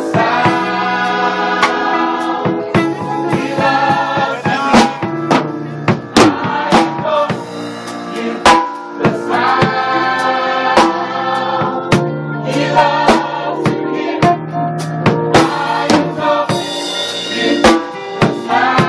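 Gospel choir singing in harmony, backed by a drum kit that strikes steadily throughout.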